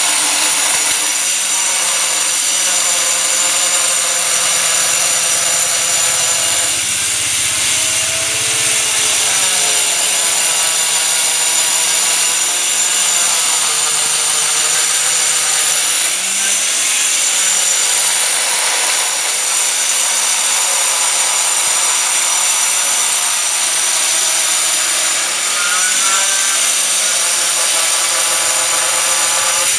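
Power stone-cutting saw running continuously through stone: a steady, loud grinding whine whose pitch wavers slightly, without a break.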